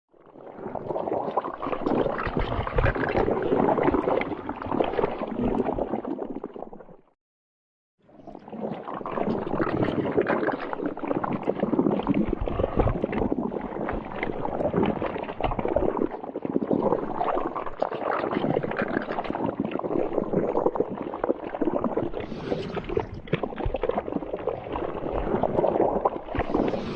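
Dense, wet gurgling and bubbling, given as the sound of the legendary deep-sea 'black carpet'. It cuts out for about a second around seven seconds in, then resumes and runs on unbroken.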